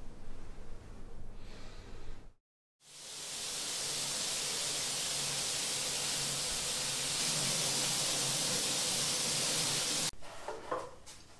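Water spraying steadily from a rainfall shower head, an even hiss that fades in about three seconds in and cuts off suddenly near the end. Before it there is only faint room hiss, and after it a few light taps.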